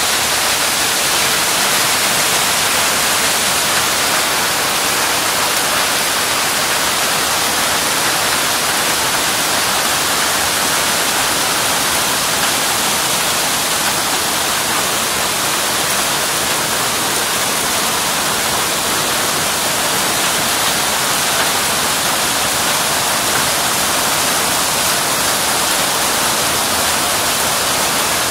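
Heavy hail mixed with rain pelting an asphalt road, making a dense, steady hiss that holds at the same level throughout.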